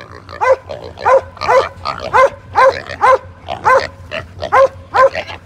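An animal calling in short, loud, pitched cries, about two and a half a second, very regular.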